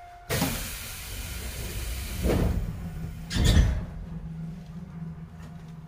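Tobu 10030-series train's pneumatic doors closing at a station stop: a sudden rush of air about a quarter second in, two louder thuds about two and three and a half seconds in as the doors shut, then a steady low hum from the standing train.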